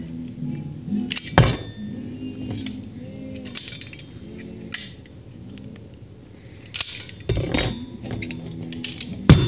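Metal forks and spoons clinking and clattering as they are handled, with sharp clinks about a second and a half in and a cluster of them after about seven seconds.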